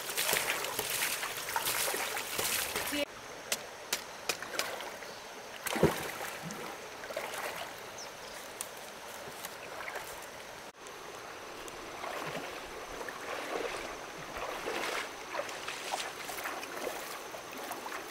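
Flowing stream water with scattered knocks, louder for the first three seconds, then dropping suddenly. The loudest sound is a single sharp knock about six seconds in.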